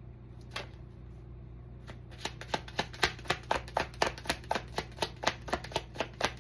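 A deck of tarot cards being shuffled by hand. A couple of single soft clicks come first, then from about two seconds in a quick, even run of card slaps, about five a second.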